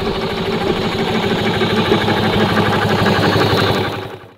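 4-inch scale Burrell steam traction engine running along the road, a steady mechanical sound with a fast, even beat. It fades out near the end.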